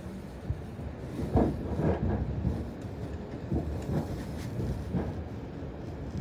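Inside a moving passenger train's carriage: a steady low running rumble, with the wheels clacking irregularly on the track and a louder knock about a second and a half in.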